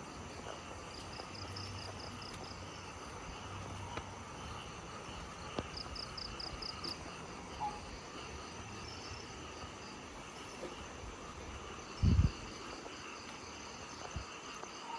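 Crickets and other night insects trilling steadily, with a couple of short runs of rapid chirps. A brief dull thump about twelve seconds in.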